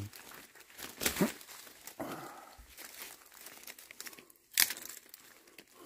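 Dry leaves and brush rustling and crackling underfoot and against the body as someone pushes through forest undergrowth, with sharp cracks about a second in and again a little past four and a half seconds.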